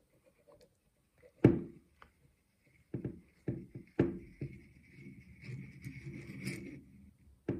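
Clicks and knocks of a rifle bolt's metal parts as the firing-pin assembly is unscrewed from the bolt body using a small pin tool. A sharp click about a second and a half in is the loudest, then a run of lighter clicks and knocks, then a faint steady sound near the end as the threads turn.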